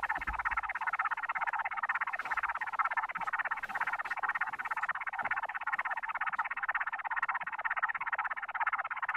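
A steady, dense, rapidly fluttering rasping buzz laid over the scene as a horror sound-design effect.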